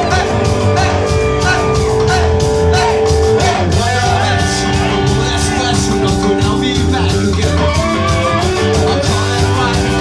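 Live Tejano punk band playing loud: drum kit with a fast steady beat, electric bass and guitar, held notes, and singing.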